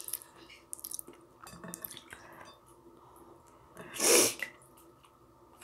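Spoon scraping and tapping in a plastic takeout container of rice, with scattered small clicks of utensils. About four seconds in, a short, loud puff of breath close to the microphone.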